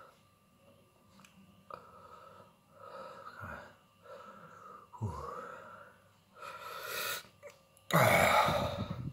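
A man breathing hard through his mouth in a string of heavy, breathy exhales about a second apart, with a much louder blast of breath near the end. This is the pained breathing of someone suffering the burn of a superhot 7 Pot Douglah chilli.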